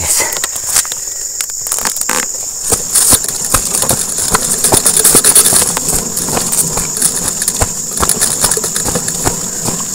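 Heavily loaded wheelbarrow rattling and clattering as it is pushed over rough, muddy ground, its tray and load knocking irregularly. Crickets chirp steadily throughout.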